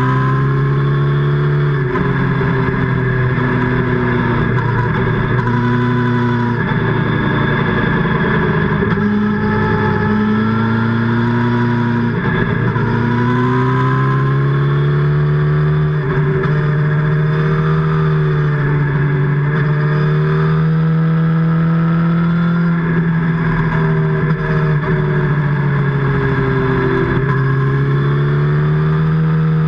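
Kawasaki motorcycle's inline-four engine under way, heard close to its exhaust, its note sinking and rising with the throttle through the bends and holding higher and steadier in the second half.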